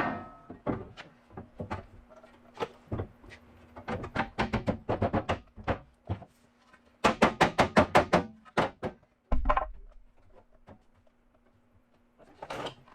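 Hammer blows on steel sheet metal in quick runs of several strikes, with a dull thud about halfway through, as the trunk drop-off panel is tapped into place on a 1969 Camaro body.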